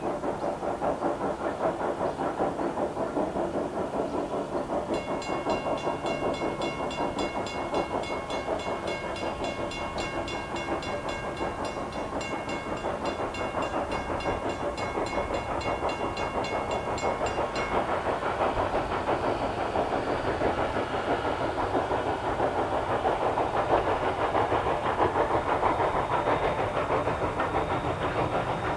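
A steam train running at speed, with a fast, even rhythmic clatter of exhaust and wheels that slowly grows louder as it approaches. From about five seconds in to about seventeen seconds a high, rapidly pulsing ringing rides over it.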